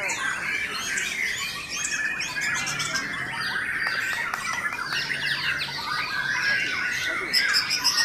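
Many caged white-rumped shamas (murai batu) singing at once: a dense chorus of overlapping whistles, chirps and trills. Near the end a fast run of high notes stands out.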